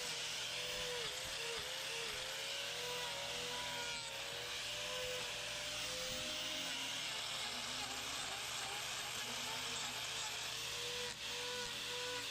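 Hoof-trimming angle grinder with a three-blade carbide wheel running as it grinds a cow's hoof. Its steady whine wavers in pitch as the wheel is worked against the hoof.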